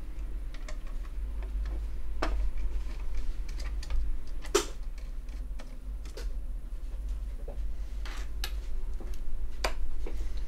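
Scattered small clicks and light knocks from the screws and plastic fan shroud of a Palit GTX 750 graphics card being handled as the shroud is worked loose. One sharper click comes about four and a half seconds in, over a steady low hum.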